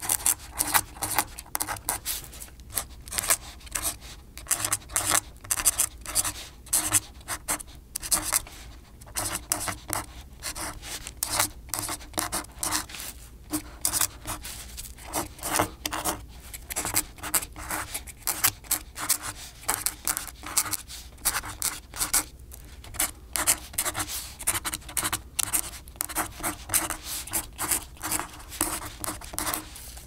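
Quill pen writing, its nib scratching in quick, irregular short strokes with brief pauses.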